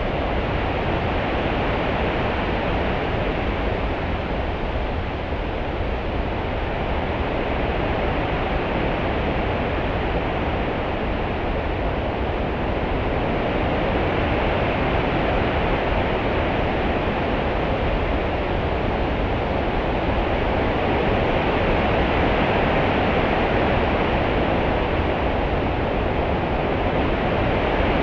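Open-sea ambience: a steady wash of water noise with a low rumble underneath, swelling slowly and growing a little louder over the stretch.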